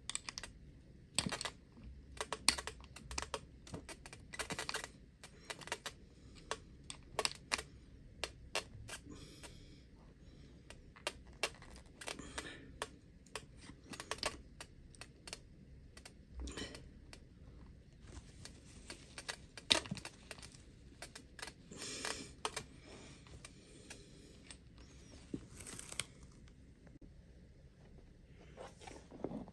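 Irregular small clicks, taps and rustles of hands handling the plastic chassis, wiring and parts of an RC rally car, with some cloth rustling.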